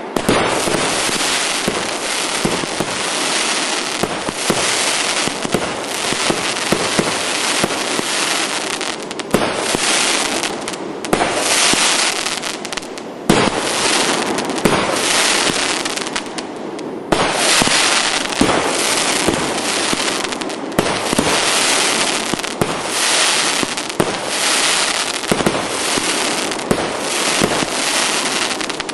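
Russian Fireworks Р7881 consumer firework going off: a dense, unbroken barrage of pops and crackling bursts, thinning briefly twice around the middle before picking up again.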